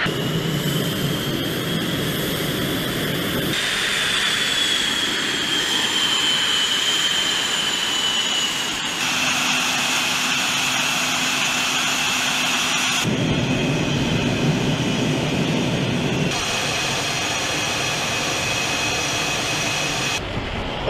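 The twin General Electric F404 turbofan engines of an F/A-18 Hornet run at low power on the ground: a steady rush of jet noise under a high turbine whine that slides slowly down in pitch for a few seconds. The sound shifts abruptly several times as the shots change.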